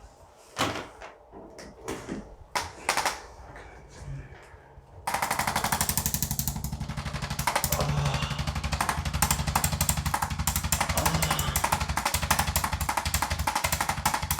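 A motor-driven percussive device starts abruptly about five seconds in and runs steadily with rapid hammering pulses over a low motor hum. Before it there are a few scattered knocks.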